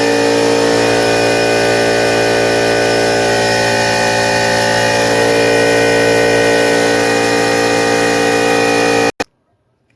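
A small motor-driven machine running steadily with several constant tones, stopping abruptly about nine seconds in.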